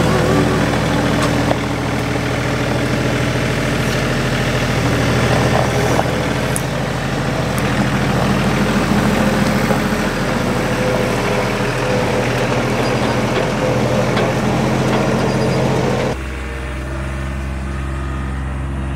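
Compact tractor's diesel engine running steadily up close. About 16 seconds in, it cuts abruptly to the same kind of engine heard quieter and more distant.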